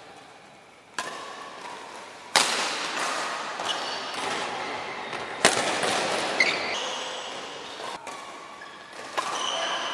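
Badminton rackets striking a shuttlecock in a rally: several sharp hits a second or more apart, echoing in a large hall, the loudest about halfway through. Short high squeaks of sports shoes on the court floor come between the hits.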